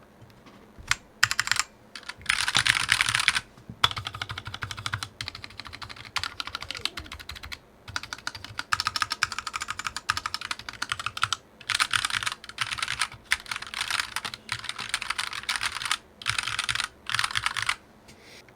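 Typing on a GMMK 60% mechanical keyboard with unlubed Gateron KS-9 switches and XVX pudding keycaps: quick runs of key clacks in bursts, with short pauses between them.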